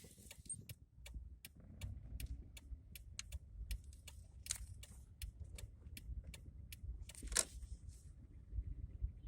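Knocking heard inside a Honda Fit's cabin under acceleration: a run of sharp, irregular clicks, about two or three a second, over the low rumble of the car.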